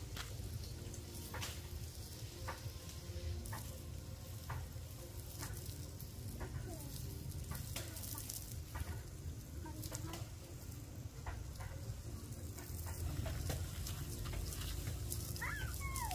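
Steady sizzling with scattered sharp crackles over a low, steady rumble.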